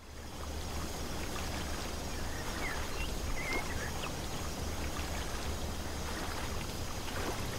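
Lakeside outdoor ambience at dusk: a steady wash of water-like noise with a low rumble underneath and a faint steady high whine, fading in at the start. A few short bird chirps come through around the middle and again near the end.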